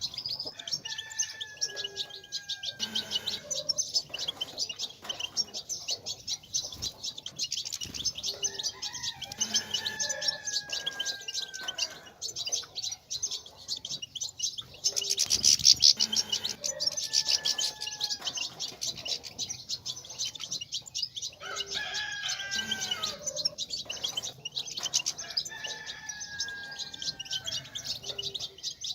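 European goldfinches twittering: a dense, rapid stream of high chirps and trills, the chatter played to set male goldfinches singing. A longer, lower falling call comes back every several seconds.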